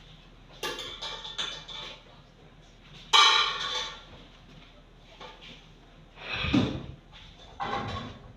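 A few separate scrapes and clunks of a metal pot being set on a gas stove, the loudest about three seconds in.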